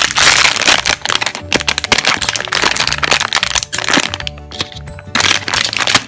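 Foil blind-box bag crinkling with sharp crackles as hands tear it open, easing off briefly about four seconds in. Background music plays throughout.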